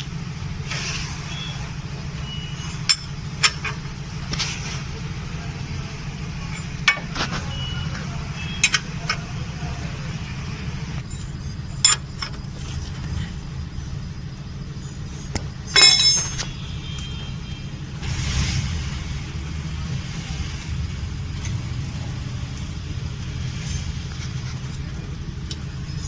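Scattered metallic clicks and clinks of hand tools and timing chain as the chain is fitted over the engine's timing sprockets, with a quick rattle of clinks about sixteen seconds in, over a steady low background hum.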